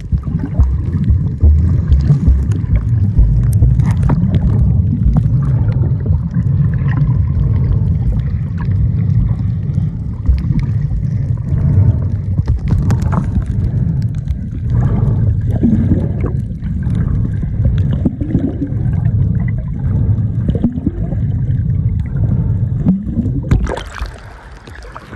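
Muffled underwater rumble of sea water moving around a submerged camera, with bubbles and small knocks. Near the end the camera breaks the surface and the sound turns quieter and thinner: open-air water hiss.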